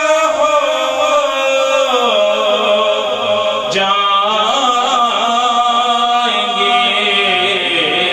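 A man's voice singing a naat (devotional Urdu kalam) in long held notes that step and bend in pitch.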